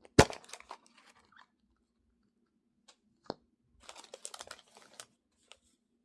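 Plastic toy capsule and its wrapping being handled and opened by hand. A sharp plastic snap comes right at the start, a smaller click about three seconds in, then a second of crinkling and crackling plastic.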